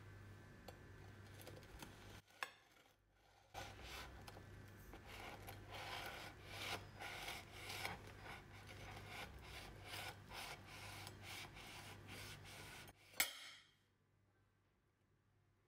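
Large kitchen knife sawing sideways through a baked sponge cake, a run of rasping back-and-forth strokes, with a sharp knock a couple of seconds in and another near the end.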